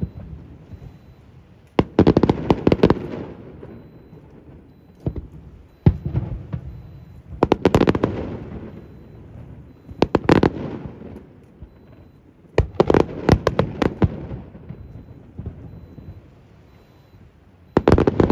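Aerial fireworks display: shells bursting in clusters of sharp bangs every two to three seconds, each cluster trailing off in a rumbling echo.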